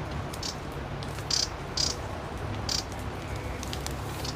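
Wrentit giving its common call: several short, dry, grating 'churr' notes at irregular intervals, over the low rumble of a field recording.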